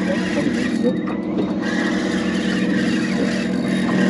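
An engine running at a steady speed, a constant low drone.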